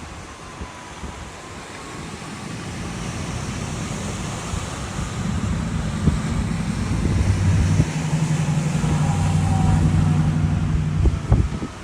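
A hailstorm with heavy rain and wind. The hail and rain hiss and pelt down, growing louder through the middle and loudest near the end, with wind rumbling on the microphone and a few sharp knocks of hail striking.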